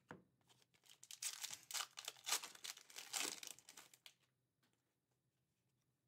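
Foil wrapper of a trading-card pack being torn open and crinkled by hand. The crinkling and tearing start about a second in and stop about three seconds later.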